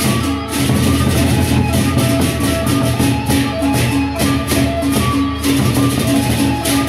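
Sasak gendang beleq ensemble playing: two large barrel drums beaten under many pairs of hand cymbals (rincik) clashed in a fast, dense, even rhythm, over steady pitched tones.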